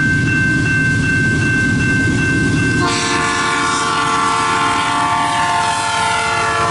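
Diesel freight locomotive approaching with a steady low rumble. About three seconds in, its multi-note air horn sounds loudly and is held.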